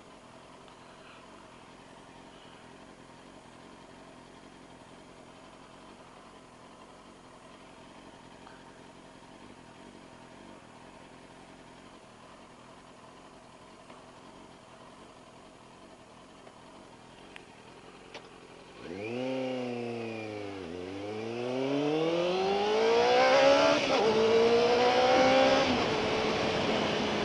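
2001 Triumph TT600's inline-four engine ticking over quietly, then, about two-thirds of the way in, revving hard as the bike pulls away. Its pitch climbs, drops sharply at an upshift and climbs again through the next gears, with wind noise building as speed rises.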